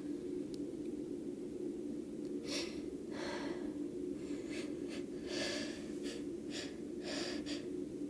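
A young woman's sneeze buildup: several sharp, breathy gasping inhalations and sniffs, coming closer together in the last couple of seconds, over a steady low hum.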